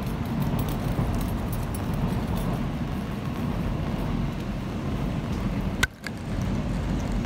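Steady low rumble of a rainy city street, traffic and rain together, with faint scattered ticks of raindrops. Near the end comes one sharp click, then a brief drop-out.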